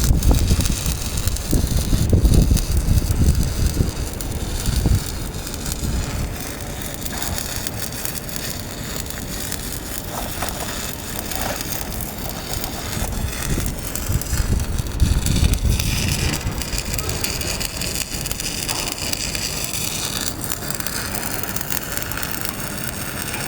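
Arc welding on steel bracing, a continuous crackle and sizzle of the electric arc. Low rumbling gusts of wind on the microphone come through in the first few seconds and again past the middle.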